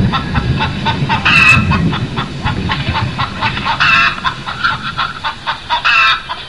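Hens clucking in quick short notes, with louder drawn-out squawks about a second and a half in, around four seconds and near the end.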